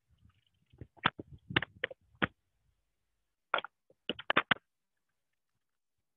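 Two quick runs of short, sharp clicks or taps, about six in the first run and five in the second, with silence between.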